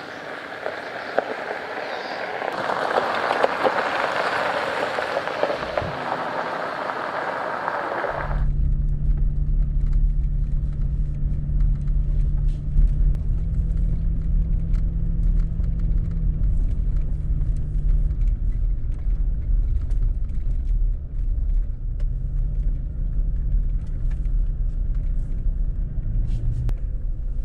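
Toyota Tacoma driving: a steady, loud low drone of engine and road noise. It is preceded by a rushing noise that swells for about eight seconds and then cuts off suddenly.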